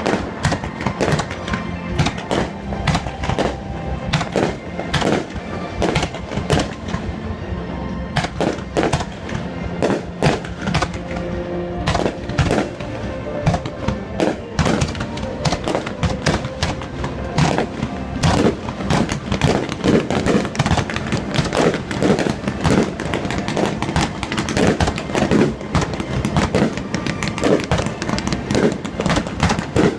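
Fireworks bursting in rapid, continuous succession, dense crackling reports with no pause, over music.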